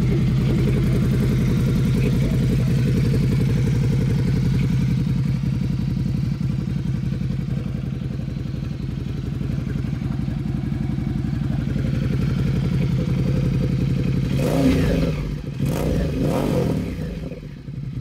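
Ducati XDiavel S's 1262 cc L-twin idling steadily through an Arrow aftermarket exhaust. In the last few seconds the even idle breaks up into uneven thumps and clatter.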